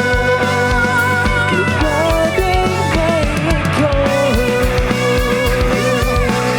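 Band music in a rock style: a guitar lead with wavering, held notes over a steady drum beat.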